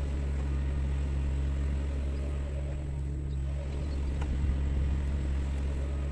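Diesel engine of a Sunward mini excavator running with a steady low hum, with a faint knock about four seconds in.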